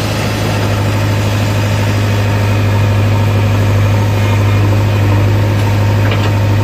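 JCB 3DX backhoe loader's diesel engine running steadily with a constant low hum while the backhoe digs and lifts a bucket of soil, heard from the operator's seat.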